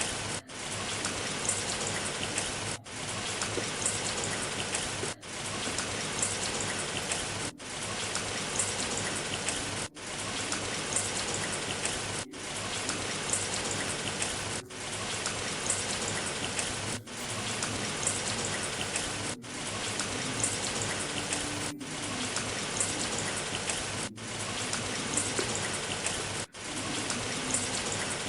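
Steady rain hiss, broken by a brief dip about every two and a half seconds, like a short rain recording looping.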